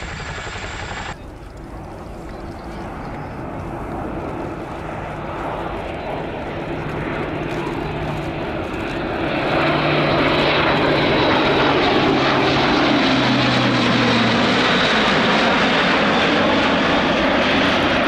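Airbus A400M Atlas's four turboprop engines and propellers droning as it flies past, growing louder about nine seconds in, the low propeller tone dropping in pitch around thirteen seconds in as it passes. The first second is Chinook helicopter rotor noise, which cuts off abruptly.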